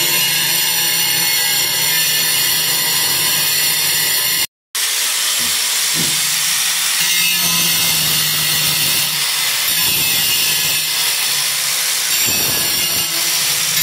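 Angle grinder with a cutting disc running steadily as it cuts a square opening through a ceramic wall tile, a hissing grind over the motor's hum. The sound cuts out for a moment about four and a half seconds in, then resumes.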